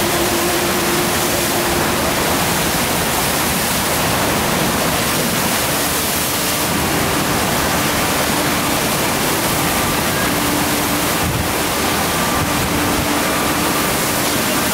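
Steady rushing of water on a FlowRider sheet-wave machine: a thin sheet of water pumped at speed up and over the curved ride surface.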